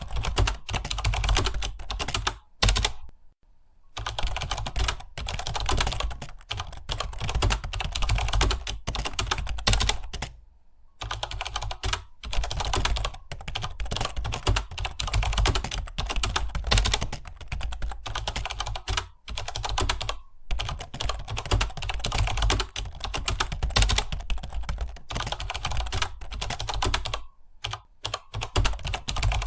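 Fast, continuous typing on a computer keyboard, a rapid stream of key clicks broken by a few short pauses.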